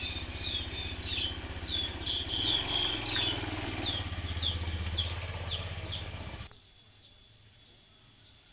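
An engine running steadily with a bird chirping over it in short, falling, repeated calls. Both cut off suddenly about six and a half seconds in, leaving only a faint hiss.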